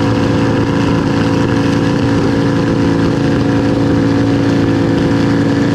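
Detroit Diesel 6-71 two-stroke diesel engine in a runaway, running loud and steady at a fixed high pitch, out of the control of its governor.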